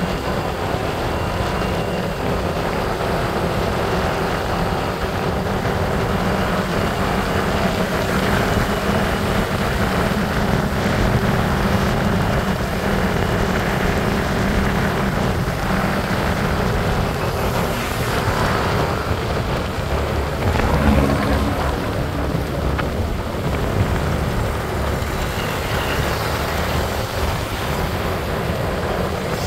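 Motorbike engine running at a steady cruise, with wind and road noise from the moving bike.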